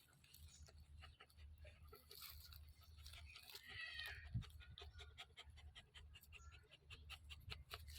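Faint sounds of a dog panting, with many light clicks and a brief high-pitched sound near the middle. A sharp knock about four seconds in is the loudest moment, over a low steady hum.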